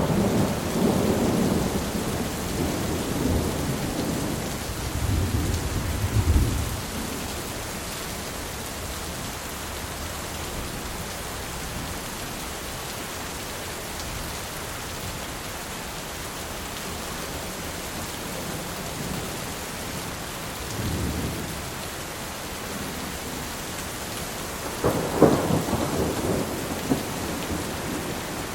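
Steady rain hissing, with thunder: a long rolling rumble over the first several seconds, a fainter rumble about three-quarters of the way through, and a sharper clap near the end.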